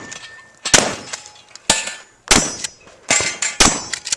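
Shotgun fired in a quick string, five shots about half a second to a second apart, each followed by a short ringing tail.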